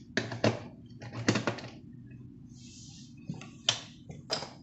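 A series of short clicks and scraping clacks, about six in under five seconds, over a faint low hum.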